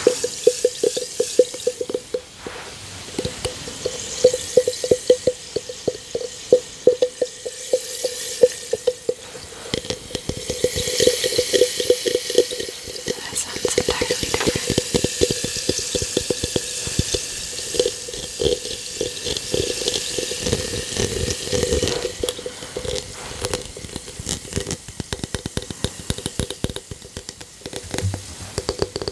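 Bath bomb fizzing in water: a dense, continuous crackle of tiny bursting bubbles with a steady hiss.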